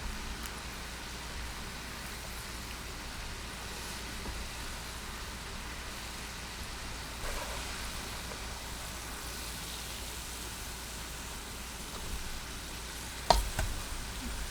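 Karaage chicken pieces deep-frying in hot oil, with a steady sizzle. A sharp knock near the end.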